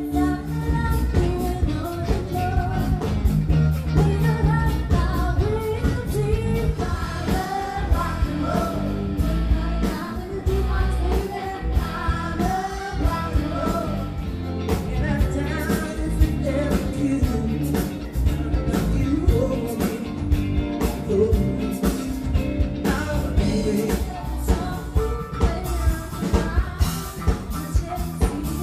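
Rock band playing: a woman singing lead over electric guitar, bass guitar and drums, with the drum beats standing out more sharply near the end.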